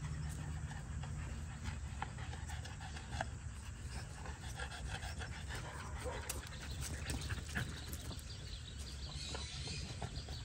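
French bulldog panting close by, with scattered light clicks of scissors cutting a sheep's fleece.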